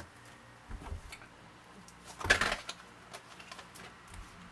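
Tarot cards being handled on a wooden tabletop: scattered light taps and clicks, and one louder brushing burst about two seconds in.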